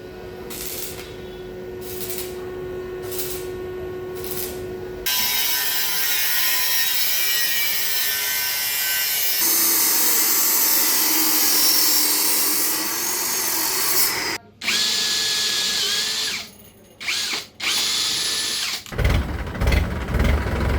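Machine-tool cutting noise: a motor-driven cutter whining over a high hiss, in a run of separate clips that change abruptly every few seconds.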